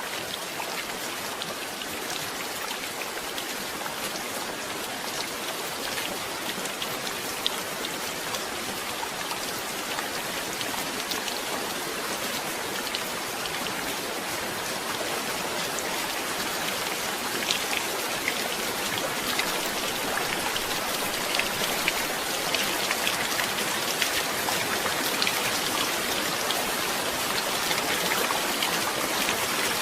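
Steady rain falling, with many individual drops ticking sharply on a hard surface; the drop hits grow denser and slightly louder over the last third.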